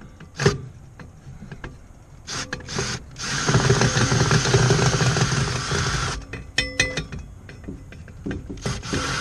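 Cordless drill turning a fastener through a long socket extension: a short blip of the trigger, two brief bursts, then a steady run of about three seconds. A few sharp clicks follow, and the drill starts running again near the end.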